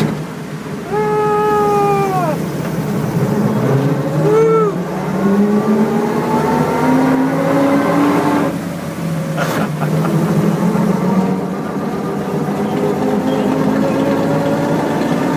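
The 1928 Graham Brothers truck's engine pulling on the road, its pitch climbing steadily, falling suddenly about eight seconds in with a knock a second later, then climbing again. A drawn-out pitched tone sounds about a second in and a short one around four and a half seconds in.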